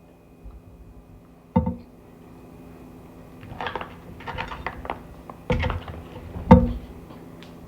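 Crunchy chewing of a grape-flavoured pickle, a run of crackly crunches, set between three sharp knocks of a hard jar or container being handled, one early and two close together near the end, the last the loudest.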